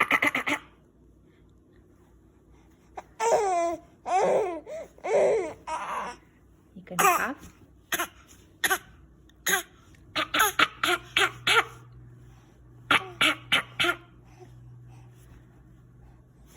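A young child coughing in short bursts and laughing in high-pitched giggles. There are coughs at the start, pitched laughing sounds a few seconds in, and quick runs of short coughs and laughs later on.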